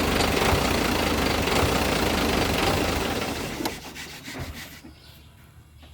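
Six-cylinder engine idling with a fast rhythmic tapping from the valve train, which the mechanic puts down to a rocker arm with a worn roller. It shuts off about three and a half seconds in and runs down.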